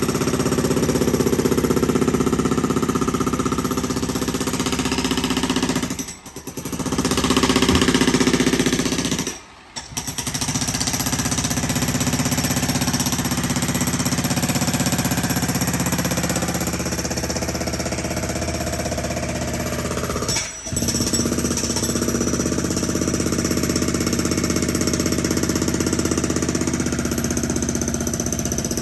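Jackhammer hammering steadily, breaking up concrete, with three short pauses where it stops for under a second.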